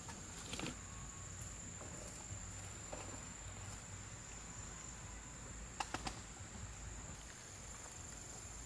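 Insects trilling in one steady high-pitched tone, with a few light clicks about half a second in and again about six seconds in.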